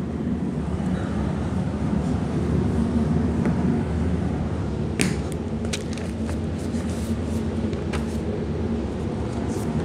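Steady low background rumble with a few faint sharp clicks, about five seconds in and again near eight seconds.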